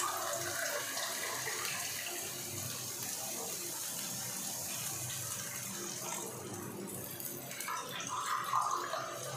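Water poured in a steady stream from an electric kettle into a steel tumbler, then tipped from the tumbler into a frying pan, glass by glass.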